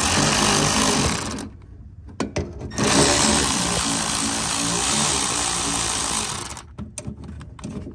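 Cordless electric ratchet running in two bursts while loosening a bolt: a short run, then a longer one of about four seconds, with a few clicks of the tool between and after.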